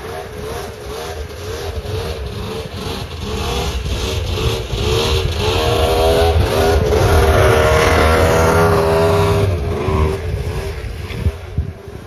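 Two-stroke snowmobile engine of a 1996 Arctic Cat ZRT 600, a three-cylinder, running as the sled rides by: it grows louder over several seconds, peaks with its pitch wavering, then fades.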